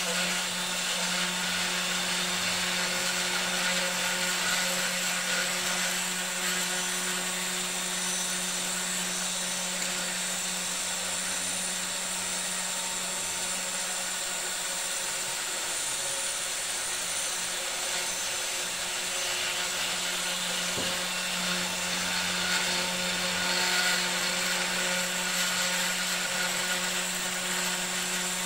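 3018 Pro desktop CNC router milling a round pocket in hardwood, its spindle running steadily at a relatively low speed, taking 0.3 mm deeper on each pass. It gives a constant hum under the steady hiss of the cut.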